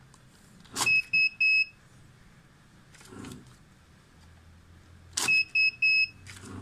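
Secure LD-26M banknote counter pulling a note through with a brief rush of noise, then sounding three short high beeps; this happens twice. The beeps are its magnetic-detection alarm flagging a 10,000-rupiah note as suspect (error EE2), since its MG check only passes 100,000 notes.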